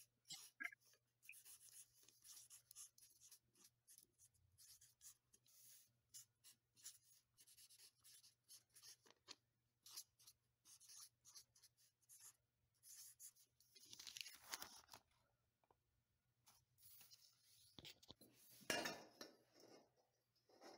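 Near silence: a marker pen scratching faintly on a sheet of paper as it writes, over a faint low steady hum. A couple of slightly louder brief handling noises come about two-thirds of the way in and again near the end.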